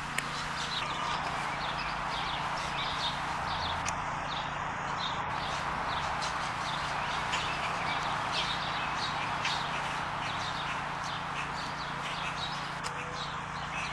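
Backyard ambience: many short, quick bird chirps keep coming over a steady outdoor hiss, with a faint low hum underneath.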